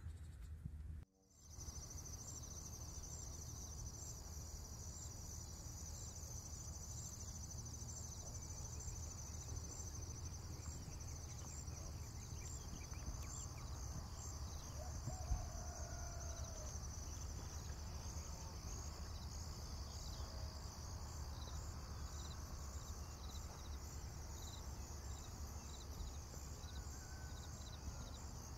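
Outdoor ambience: insects trilling steadily in a fast, even pulse over a low rumble, with one short tap about halfway through.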